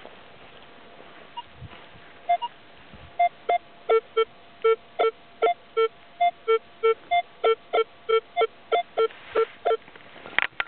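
Minelab X-Terra 705 metal detector beeping: a run of about two dozen short beeps at two alternating pitches, roughly three a second, starting about two seconds in, with a brief rustle near the end.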